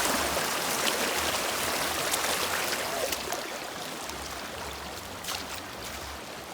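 River water flowing and rushing over stones, a steady wash that gradually gets quieter toward the end.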